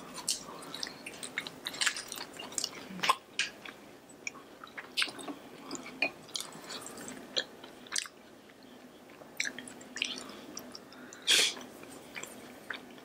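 Close-miked chewing of fried food: wet mouth clicks and small crunches scattered throughout, with one louder one about eleven seconds in.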